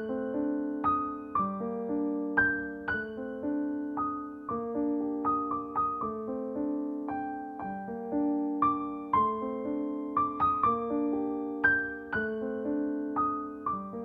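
Calm piano music: a slow melody over sustained chords, each note struck and then ringing out and fading.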